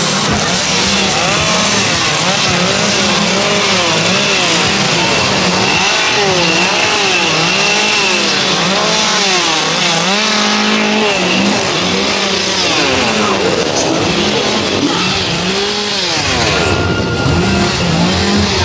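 Small petrol engines revving up and falling back over and over, several overlapping, above a steady idling drone.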